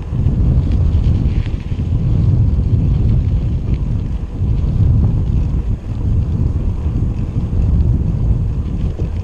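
Wind buffeting the microphone of a camera riding along on a bicycle: a loud, uneven low rumble that rises and falls without pause.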